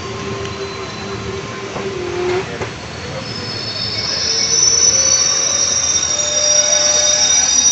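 Indian passenger train carriage running on the rails, heard on board, with a steady lower tone for the first couple of seconds. From about three seconds in, the wheels start a loud, high-pitched squeal against the rails that keeps on to the end.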